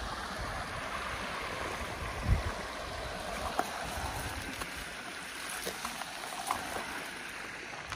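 Shallow river water running over a rocky bed, a steady rushing, with a brief gust of wind on the microphone about two seconds in.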